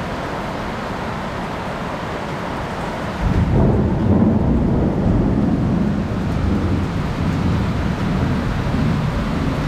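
Heavy rain falling steadily; about three seconds in, a deep rumble of thunder swells up and carries on.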